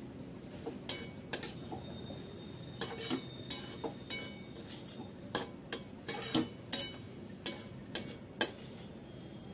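Metal spatula scraping and clinking against an aluminium kadhai while stirring a dry mixture of dried shrimp and raw mango, in about fifteen irregular strokes starting about a second in.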